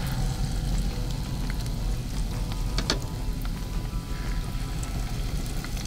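Hot oil sizzling steadily as a thin stream of egg-and-flour batter is poured into it for crispy fried egg, with a single small click about three seconds in.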